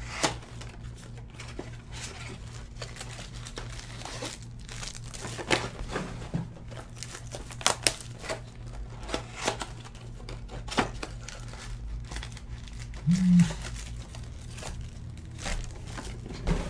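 Foil trading-card pack wrappers crinkling and tearing in the hands as packs are ripped open and the cards are handled, in scattered short rustles. A brief low hum-like tone sounds about two-thirds of the way through.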